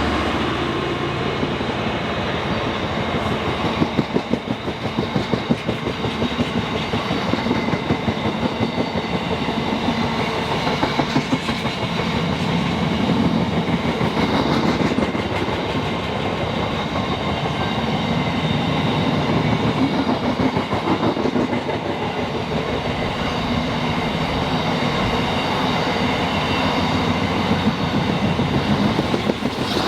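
A train passing close by, its wheels clattering rhythmically over the rail joints, for about half a minute without let-up.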